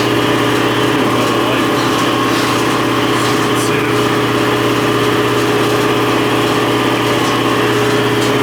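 A motor-driven machine running steadily, a constant pitched hum at an even level.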